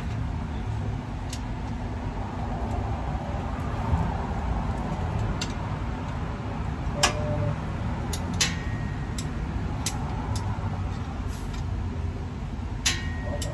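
Scattered sharp metal clicks and clinks from hand work on the underside of a car during an oil change, over a steady low rumble.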